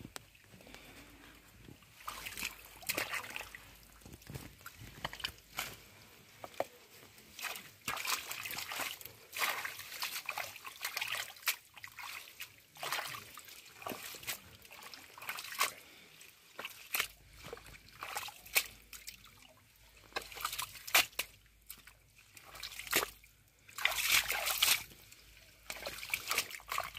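Hands sloshing and splashing in shallow muddy water in short, irregular bursts, starting about two seconds in, while feeling through the mud for snakehead fish.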